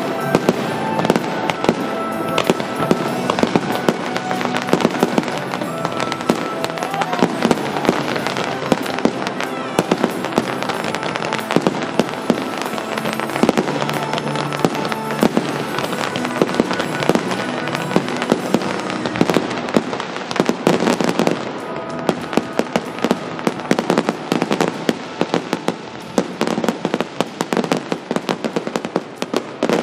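Fireworks display: a dense, continuous barrage of aerial shell bursts and crackling stars, with sharp bangs and crackles coming many times a second. Music plays underneath for roughly the first two-thirds, and the barrage turns a little quieter and more purely crackling near the end.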